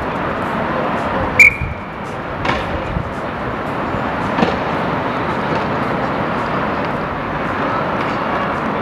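Inline roller hockey play under a steady hum of city traffic: a sharp hit with a brief ringing tone about a second and a half in, then lighter knocks of sticks and puck.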